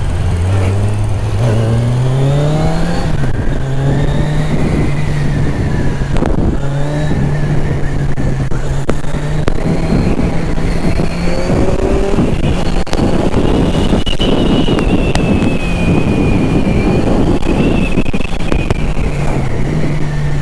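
Kawasaki Ninja 1000's inline-four engine heard from the rider's helmet microphone, with wind rush over it. The engine note climbs about two seconds in, holds a steady cruise, and drops as the bike eases off near the end.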